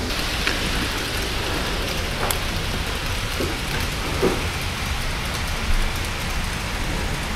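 Model freight train rolling along the layout's track: a steady rushing rumble of wheels on rail, with a few faint clicks.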